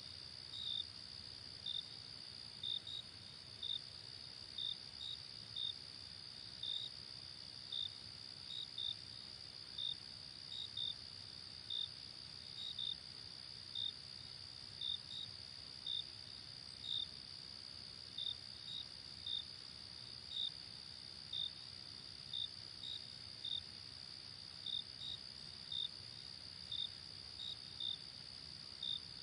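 Insects chirping: a steady high-pitched trill, with short chirps repeating about once a second, sometimes in quick pairs.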